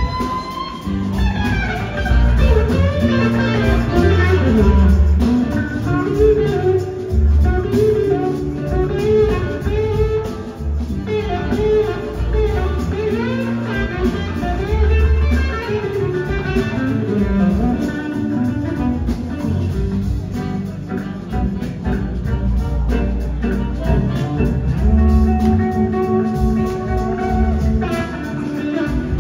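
Live blues-rock band playing: an electric slide-guitar lead with gliding, bending notes over bass and drums, with a horn section behind.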